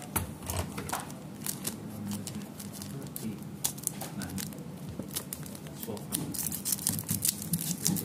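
Scissors snipping open a foil Pokémon booster pack wrapper, with many short sharp cuts and the crinkle of the foil being handled.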